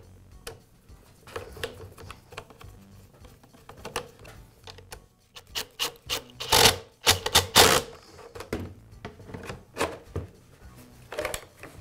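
Clicks and scrapes of plastic blower housing parts being handled and screwed together, with several short, loud bursts about six to eight seconds in as a cordless drill/driver runs in the blower tube clamp screws. Near the end the plastic blower tube rubs as it is pushed on.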